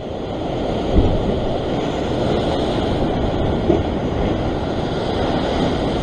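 Heavy ocean swell surging and breaking over a rock ledge, a steady rush of white water, with wind on the microphone and a low thump about a second in.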